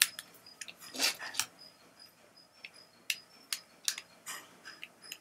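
Cable plugs and wires of a USB VHS-to-DVD converter being handled and fitted together: a string of irregular sharp clicks and taps.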